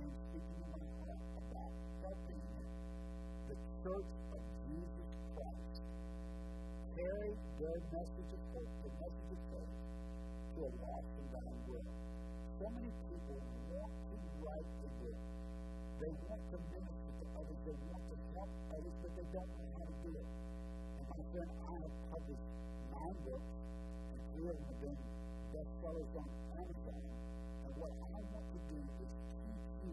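Steady electrical mains hum, several tones held without change, with faint speech half-buried beneath it.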